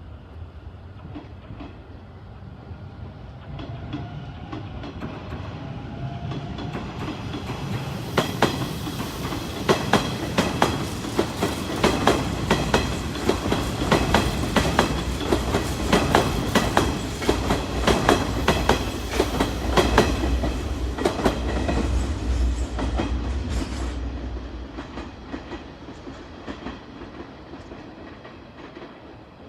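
Electric commuter train passing close by, wheels clicking rhythmically over rail joints. It comes up gradually, is loudest with the clicking through the middle, and fades away near the end.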